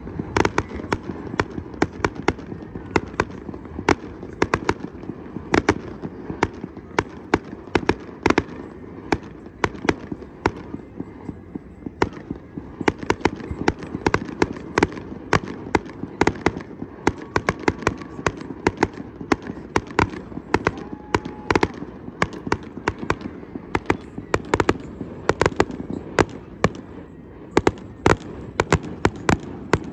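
Fireworks display: aerial shells bursting in a steady, rapid run of sharp bangs, two to three a second, over a steady low background noise.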